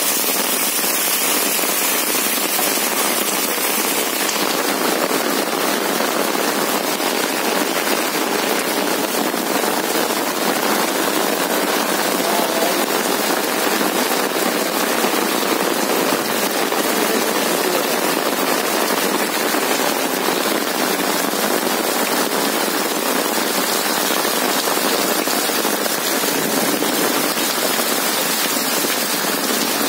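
Heavy rain pouring down steadily: a dense patter of drops striking and splashing into standing water on a flooded paved lane.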